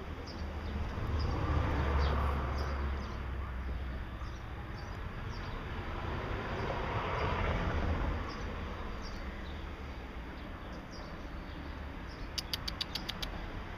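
Traffic noise swelling and fading twice, with small birds chirping now and then. Near the end comes a quick run of sharp, high ticks.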